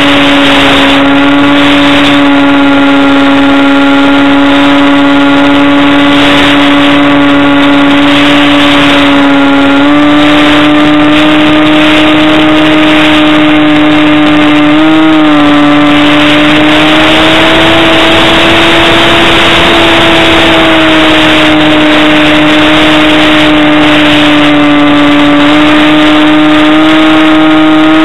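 Motor and propeller of an RC model DG1000 glider, heard from a camera on board: a loud, steady whine with several overtones that shifts slightly in pitch a few times, over a rush of wind.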